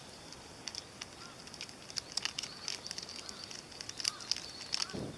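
Wood campfire crackling: irregular sharp pops and snaps over a faint steady hiss.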